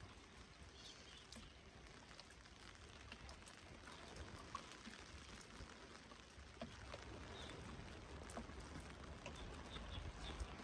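Heavy rain falling, quiet and steady, with scattered drops ticking close by and a low rumble of wind on the microphone.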